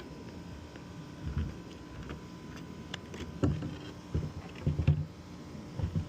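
Irregular low knocks, bumps and light clicks of a locksmith's tools working on a Toyota Highlander's car door to open it after a lockout.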